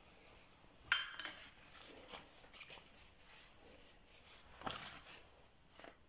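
Small metal dishes being handled and set down on a countertop: a sharp ringing clink about a second in, another clink a little before the end, and light clattering and handling noise between.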